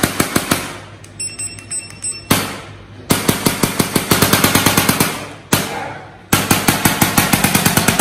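Electric chiropractic adjusting gun firing rapid trains of sharp strikes into a man's back along the spine, about ten a second, in several bursts with short pauses between them.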